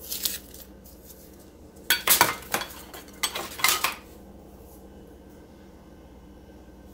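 Kitchen handling noises: three short bursts of rattling and scraping as refrigerated biscuits are worked out of an opened cardboard biscuit can and set on a glass baking dish, the first at the start, the others about two and three and a half seconds in.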